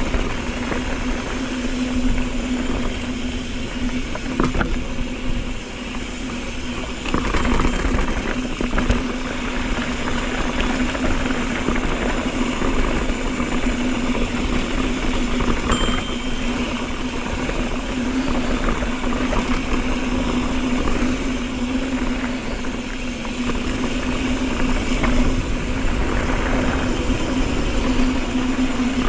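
Mountain bike riding fast down a dirt truck trail. There is continuous wind on the helmet-camera microphone, tyres rolling over dirt and rock, and knocks and rattles from the bike over bumps, under a steady buzz from the bike.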